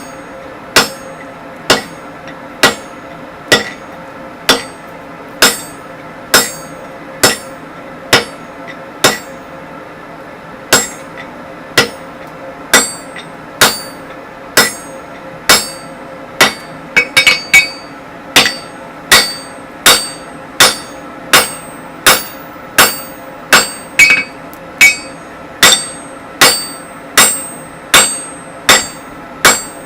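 Hammer blows forging hot 25 mm square mild steel bar on an anvil, struck in a steady rhythm of roughly one blow a second, the anvil ringing between strikes. About 17 seconds in comes a quick run of four lighter taps.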